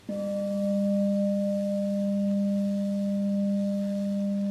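Buddhist bowl bell struck once at the start, ringing on with a steady low tone and a fainter higher overtone that barely fade.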